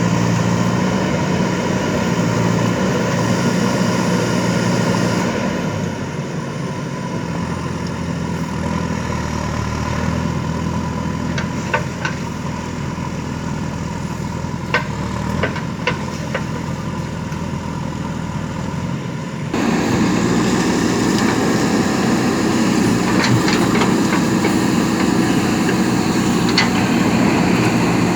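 Diesel engine of a JCB backhoe loader running steadily while the machine works, with a few sharp knocks in the middle. The engine drops to a quieter, lower note about six seconds in and comes back louder abruptly about two-thirds of the way through.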